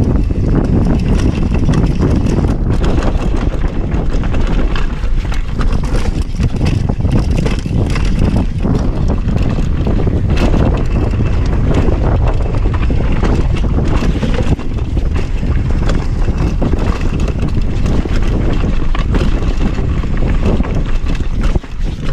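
Mountain bike descending a dirt and gravel trail: wind buffeting the camera's microphone over a steady low rumble of tyres on the ground, with frequent clicks and knocks as the bike rattles over bumps and stones.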